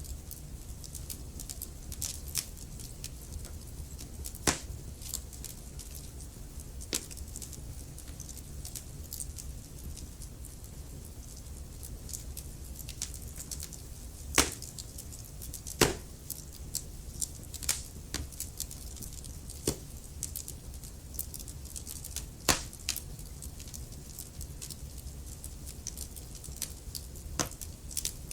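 Wood fire crackling: irregular sharp pops and snaps of burning logs over a steady low rumble of the flames, with a few louder pops scattered through.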